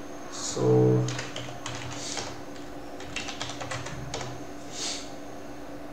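Typing on a computer keyboard: a quick run of key clicks from about one and a half to four seconds in.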